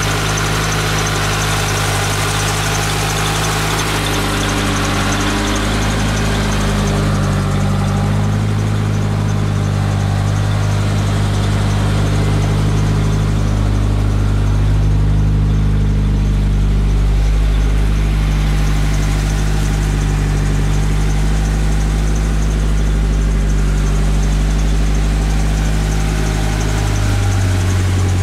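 Mitsubishi Eclipse GSX's turbocharged four-cylinder engine idling steadily. Near the end the idle pitch dips briefly, then settles at a slightly different speed.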